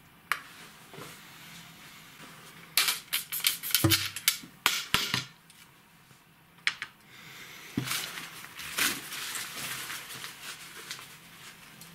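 Handling noise at the camera: a quick run of sharp clicks and knocks, a single click a little later, then steady rustling as a shirt brushes against it.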